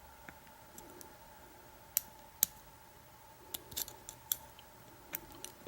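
Lock pick working the pins of an American Lock 5200 padlock under tension: a scattering of small, sharp metallic clicks and ticks at irregular intervals as the pins are lifted one at a time.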